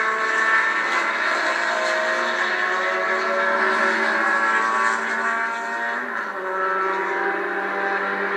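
Several small production race cars' engines running hard on the circuit, more than one engine note at a time, with the pitch dropping about six seconds in. Heard through a television's speaker, thin with no low end.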